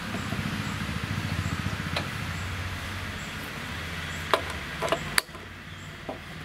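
Metal tongs and a small pan clinking as they are picked up and handled at a gas stove: several sharp clinks, the loudest between about four and five seconds in, over a steady low rumble that drops away after the last clink.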